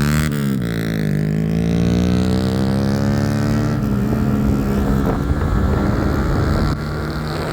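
Motorcycle engine and exhaust under way. The pitch dips just after the start, then rises steadily for about three seconds as the bike accelerates, then holds steadier. Wind rushes on the microphone.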